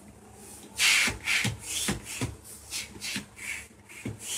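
A rapid run of short, breathy puffs, many with a low falling grunt, about two or three a second and starting about a second in.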